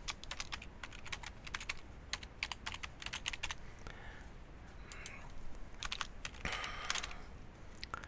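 Typing on a computer keyboard: an irregular run of quick key clicks with a few short pauses.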